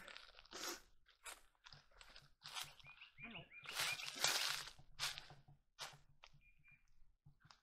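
Footsteps crunching through dry leaf litter, an irregular series of crisp steps with twigs and brush rustling against the walker.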